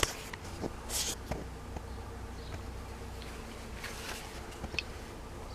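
A brief hiss of WD-40 aerosol spray about a second in, with small clicks and knocks of handling the steering-column parts over a steady low hum.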